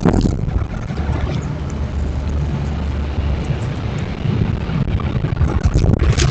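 Low, steady rumble on the trail camera's microphone, with a sharp knock near the start and another near the end.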